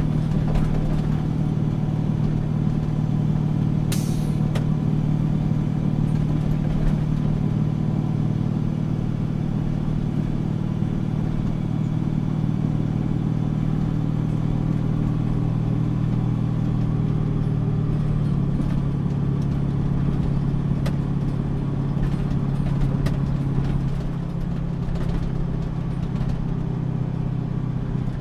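Septic truck engine running steadily as the truck drives along a snow-covered road. Its note changes about two-thirds of the way through and eases off slightly near the end, with a few sharp clicks and rattles over it.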